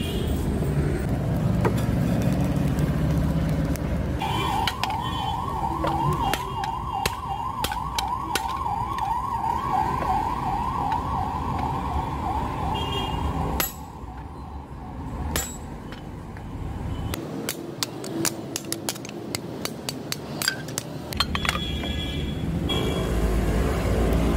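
Hammer blows on a hot-cut chisel cutting through a red-hot truck leaf spring on an anvil, a run of sharp metal strikes. A siren wails with a fast rise-and-fall from about four seconds in until about fourteen seconds.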